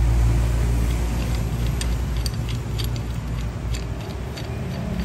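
Steady low rumble of road traffic, with a few faint, light clicks scattered through it.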